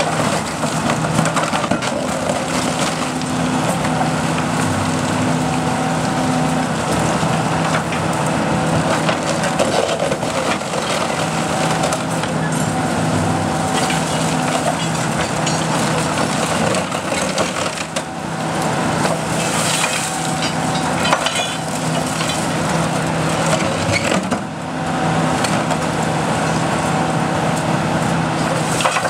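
Hitachi Zaxis 300 LCN excavator's diesel engine running steadily under load while its hydraulic demolition shear crushes and breaks up debris, with many sharp cracks and snaps throughout.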